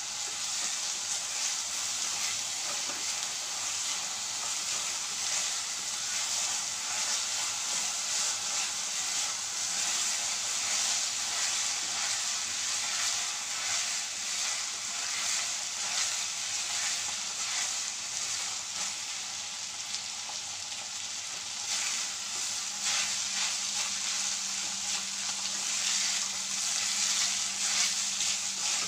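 Soaked rice frying in hot ghee with whole spices in a kadhai, sizzling steadily, with the scraping of a wooden spatula stirring it through the pan.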